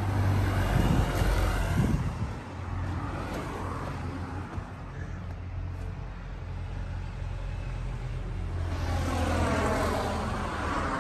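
Road traffic passing close by: a van drives past in the first two seconds, then after a lull another vehicle swells and fades past near the end.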